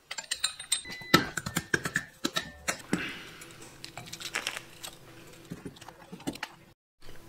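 Metal parts of a car's front strut assembly clinking and clicking as they are handled and fitted together: coil spring, collars and strut body knocking against each other. Rapid clicks with a few brief metallic rings in the first three seconds, then sparser knocks.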